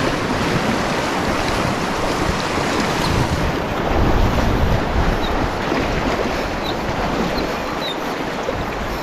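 Fast river current rushing and splashing around an inflatable drift raft and its trailing oar blade, with wind buffeting the microphone.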